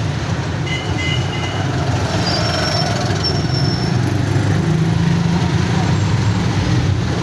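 Auto-rickshaw engine running steadily, heard from inside the cab while riding in traffic. Brief high-pitched tones come through about a second in and again between about two and four seconds.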